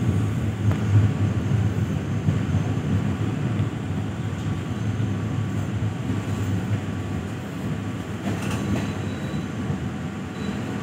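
Steady low rumble of a passenger train carriage heard from inside as the train rolls slowly into a station, growing gradually quieter as it slows, with a few faint clicks.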